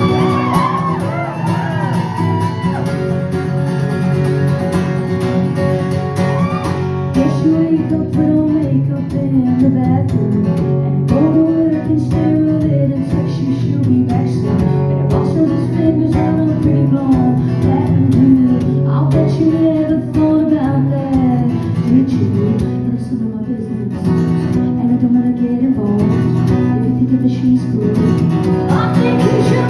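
Live band music led by guitar, loud and continuous.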